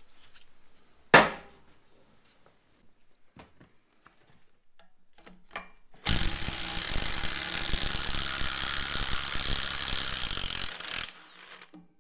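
A single sharp knock about a second in, then a cordless impact wrench on a long socket extension hammering on a tractor bolt for about five seconds before cutting off.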